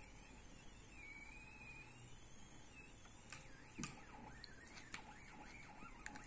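Faint whine of the two NEMA 17 stepper motors of a self-balancing robot, its pitch wavering up and down as the motors speed up and slow down to hold the robot upright. There are a few faint clicks near the middle and the end.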